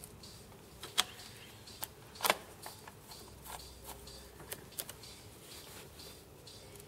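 Small clicks and taps of a screwdriver and self-tapping screws being handled while the circuit board is screwed into the camera housing; the sharpest tap comes about two seconds in.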